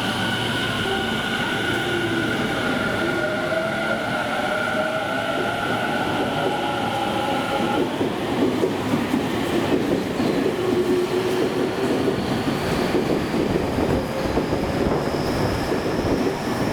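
Electric commuter train moving through the station: a steady electrical whine for the first half, then wheels clattering over rail joints, with a whine rising slowly near the end as a train picks up speed.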